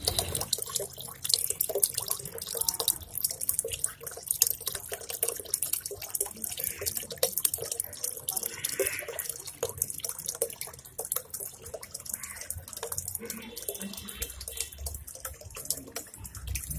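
Small terracotta fountain's jet of water splashing and trickling steadily into a pot of water.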